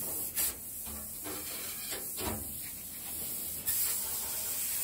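Handheld plasma cutter hissing steadily as it cuts through the sheet-steel top panel of a grill box, with a few short breaks near the start.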